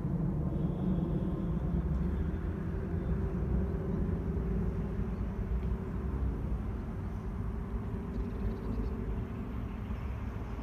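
Low, steady rumble of a distant vehicle engine, easing off slightly.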